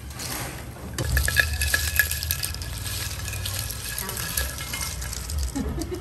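A wire spider skimmer scooping and scraping through deep-fried pieces in a stainless mesh strainer. It makes a rustling, clicking scrape that grows louder about a second in, over the steady sizzle of hot oil in the wok.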